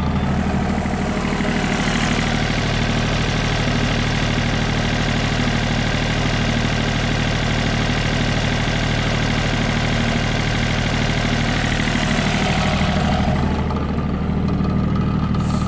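Yanmar mini-excavator's diesel engine running steadily, warm at operating temperature.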